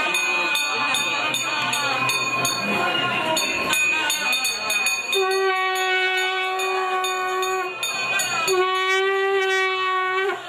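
Conch shell (sangu) blown in two long, steady blasts about five and eight seconds in, each holding one pitch for about two seconds and bending up slightly as it ends, sounded for the aarti lamp offering. Before the blasts there is a busy mix of voices and rapid clicking.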